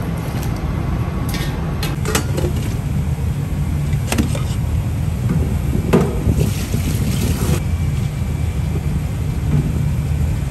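Steady low rumble of commercial kitchen equipment, with a few short metal clinks and knocks from a strainer and pots.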